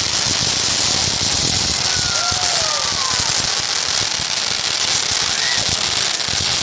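Fireworks crackling, a dense, unbroken crackle that stays at an even, loud level.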